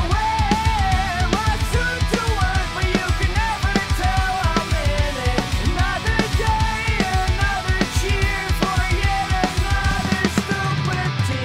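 Rock music played on a drum kit, with kick and snare hitting a fast, steady beat under a wavering lead melody.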